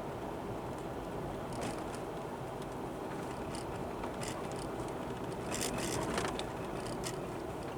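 A car driving, heard from inside the cabin: steady road and engine noise with a few light ticks and rattles, a small cluster of them a little past halfway.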